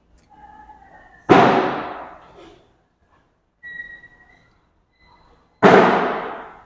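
Two cornhole bags landing on the board from slide throws, each a sharp thud that rings out and fades over about a second in a large echoing hall, the second about four seconds after the first.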